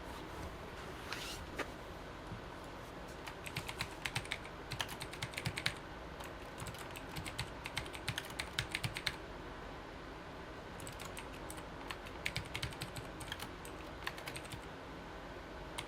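Typing on a computer keyboard: several bursts of rapid key clicks with pauses between them.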